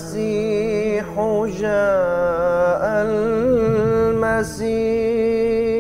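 A man's voice chanting a slow, ornamented melody in long wavering notes, ending on a long held note: the sung opening of an Islamic lecture series.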